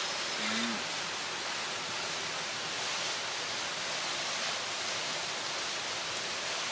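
A steady, even rushing hiss, like running water, with a brief faint low hum about half a second in.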